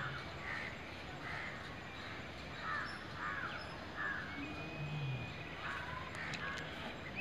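Birds calling faintly in a string of short calls, roughly one or two a second, with a thin steady whistle joining in over the last couple of seconds.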